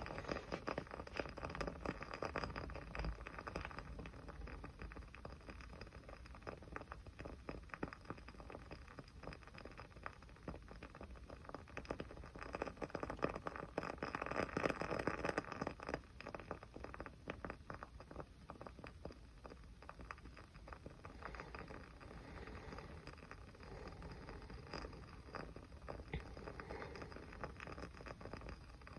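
Small fire crackling, with a steady run of quick, dense pops and snaps that grow busier and louder around the middle.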